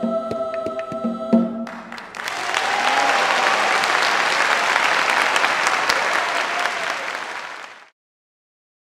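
A children's choir holds its final chord over tambora drum strokes, closing on a loud drum hit about a second and a half in. An audience then applauds, with a brief cheer near the start. The applause cuts off abruptly near the end, followed by silence.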